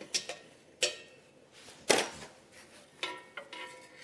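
Metal clinks and knocks from tools and exhaust fittings being handled while a Lambretta scooter's exhaust is taken off. There are half a dozen separate knocks, the sharpest about two seconds in, and the last few near the end ring briefly like struck metal.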